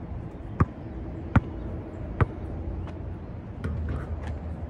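A basketball bouncing as it is dribbled, three sharp bounces about a second apart, then fainter knocks about three and a half seconds in as the short shot meets the backboard and rim.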